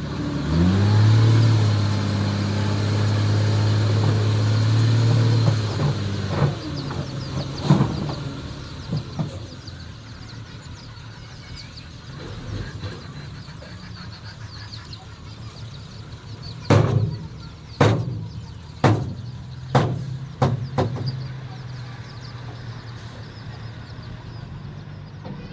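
Heavy diesel engine of earth-moving equipment revving up and held high for about five seconds, then dropping back to a lower, steady run. A series of sharp metal clanks and bangs follows, most of them in a quick cluster of about five near the end.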